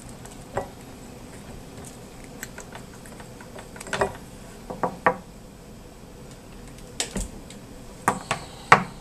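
Scattered clicks and knocks of plastic power plugs and cords being handled and unplugged from a dim bulb tester, several in a quick cluster near the end, the loudest of them there.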